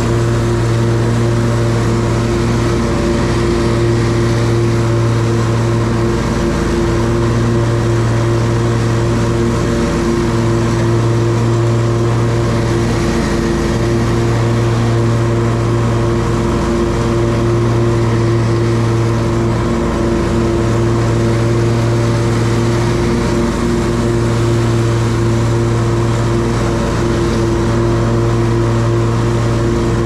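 Hustler Trimstar 52-inch walk-behind mower's engine running steadily during mowing, a constant hum with only slight dips in its low note now and then.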